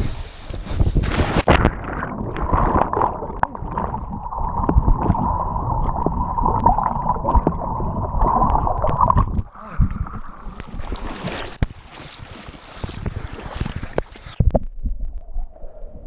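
A person jumping into water with a splash about a second in, followed by water churning, sloshing and gurgling around him.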